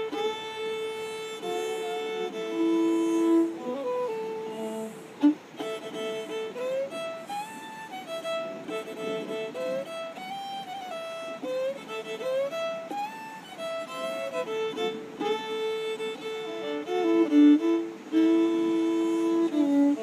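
A fiddle playing a slow melody of held, bowed notes that step up and down in pitch. A single sharp click sounds about five seconds in.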